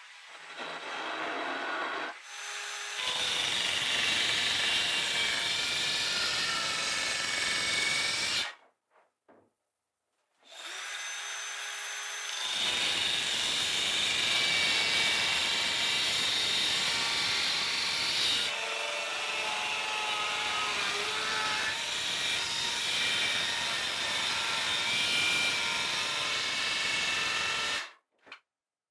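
Handheld power saws, among them a compact Bosch circular saw, cutting through plywood. They come in several stretches of steady motor whine and blade noise, broken off abruptly by short silences.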